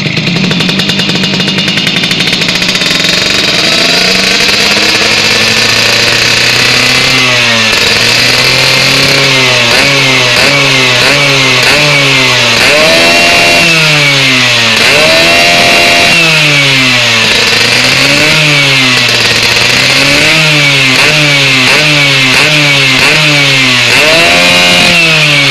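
Tuned racing Vespa's two-stroke single-cylinder engine being revved during a tune-up: it runs steadily at first, then from about a quarter of the way in the throttle is blipped up and down again and again, every second or two, now and then held briefly at high revs.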